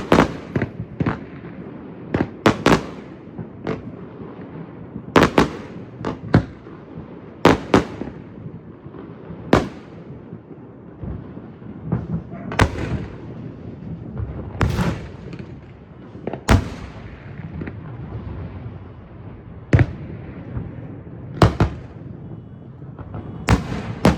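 Aerial fireworks bursting: about twenty sharp bangs at irregular intervals, some in quick pairs, over a continuous low rumble.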